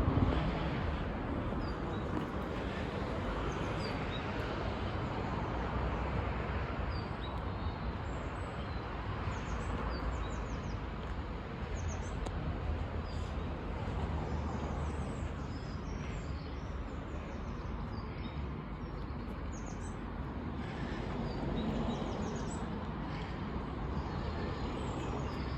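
Small birds chirping and singing many times over a steady background rush with a low rumble.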